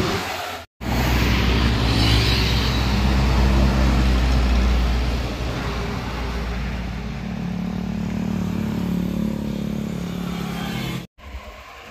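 Trucks passing close by on the road, their engines running with a low, steady drone and tyre noise, loudest in the first few seconds. The sound drops out abruptly for a moment near the start and again near the end.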